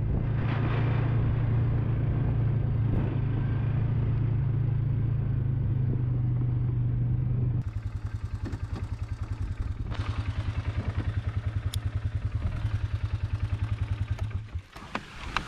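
Polaris Sportsman 450 H.O. ATV's single-cylinder engine running steadily while being ridden. About halfway through it drops to a pulsing idle as the machine stops, and it shuts off shortly before the end.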